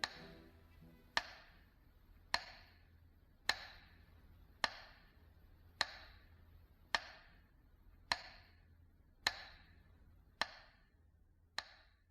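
Slow, even ticking: eleven sharp ticks about 1.2 seconds apart, each ringing briefly, like a clock's tick.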